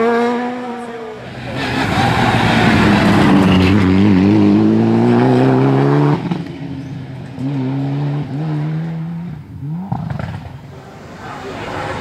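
Rally cars on a gravel stage, a Mitsubishi Lancer Evolution's turbocharged four-cylinder under hard acceleration. The engine note rises through a gear, drops sharply as the driver lifts about six seconds in, then runs steadier. Gravel spray and tyre noise hiss beneath it, and a second car's engine swells and glides near the end.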